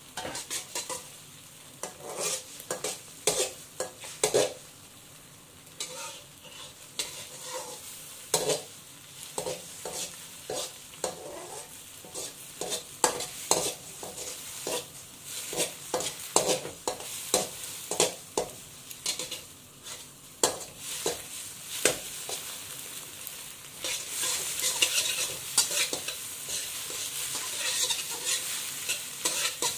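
Beaten eggs frying in oil in an aluminium wok, sizzling, while a metal slotted spatula scrapes and knocks against the pan as they are scrambled. The sizzle grows louder over the last few seconds.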